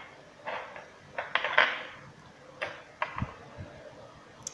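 A few short clinks and rattles of small metal and plastic parts being handled and set down on a workbench.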